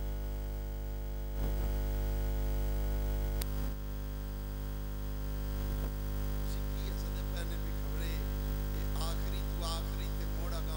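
Steady electrical mains hum from the microphone and sound system, with a sharp click about three and a half seconds in and faint voices near the end.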